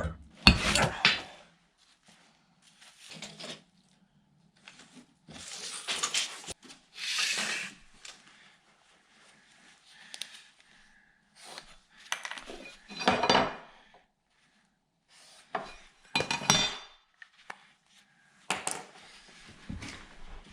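Irregular bursts of clattering and knocking from lumber and tools being handled during floor framing, with near-quiet gaps between them.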